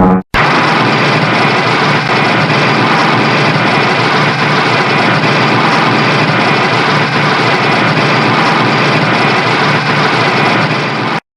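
Shin Godzilla sound effect: a loud, steady, dense rushing noise with no clear pitch. It starts just after a brief gap near the beginning, holds level for about eleven seconds, then cuts off suddenly.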